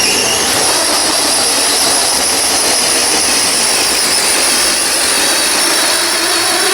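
Small combustion engine of a radio-controlled pulling truck running at full throttle, a loud, steady, high-pitched whine.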